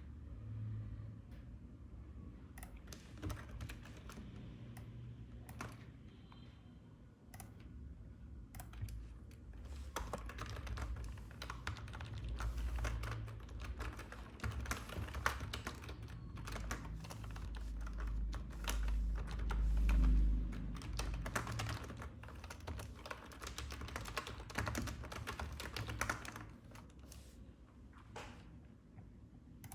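Computer keyboard typing and clicking in irregular runs, busiest in the middle and latter part, with a low rumble that swells and is loudest about two thirds of the way through.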